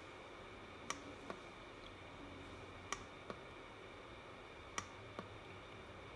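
Pairs of soft clicks, about two seconds apart, the two in each pair a fraction of a second apart, over a faint steady hiss. They are most likely the light button of a Young Living Desert Mist ultrasonic diffuser being pressed as its light cycles through colours.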